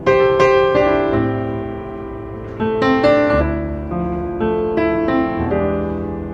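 Background piano music: a gentle melody of struck notes and chords, each note fading before the next.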